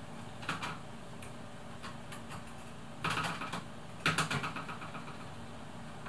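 Cat playing with a stick toy on a plastic chair: short bursts of rapid clicking and rattling, loudest in two clusters about three and four seconds in.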